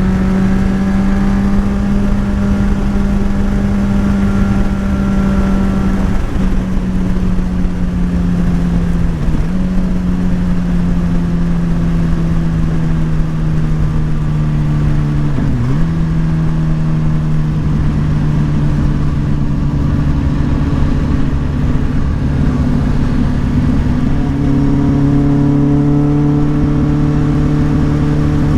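Motorcycle engine pulling steadily at cruising speed over rushing wind. The pitch slowly sinks, dips briefly three times (about six, nine and sixteen seconds in), and climbs a little near the end.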